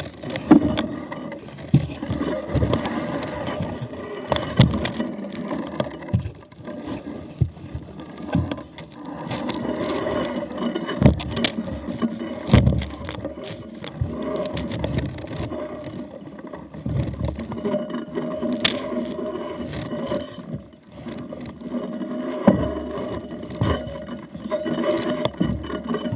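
Mountain bike being carried and pushed up wooden steps: irregular knocks, clatter and scraping of the bike and its mounted camera.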